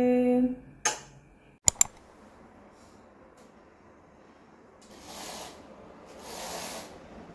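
Roller window blind being pulled up: three short bursts of rustling, whirring noise as it rises, after two sharp clicks a little under two seconds in.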